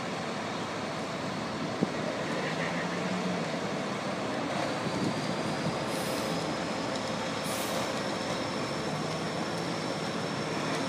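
Fire engine's diesel engine running as the truck pulls out of the station bay, with a sharp click about two seconds in and two short hisses around six and seven and a half seconds.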